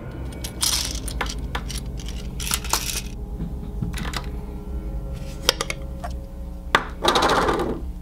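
Scattered clicks and clinks of hard plastic toys and a plastic jar being handled, then a short rush near the end as Orbeez water beads pour out of the jar into a hand.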